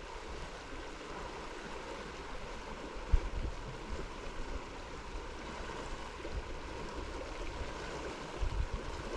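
River water flowing steadily, with a short low bump about three seconds in and another near the end.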